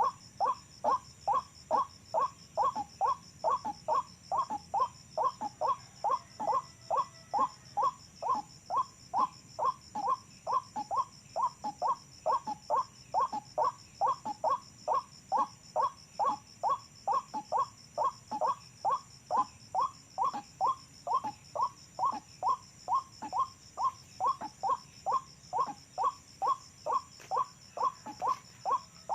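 Recorded call of the white-breasted waterhen (ruak-ruak) played as a lure: the same harsh croaking note repeated very regularly, about two a second.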